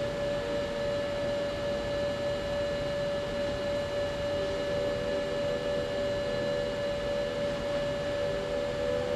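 A steady droning tone with fainter held tones coming and going beneath it, over a constant hiss: a sustained ambient drone.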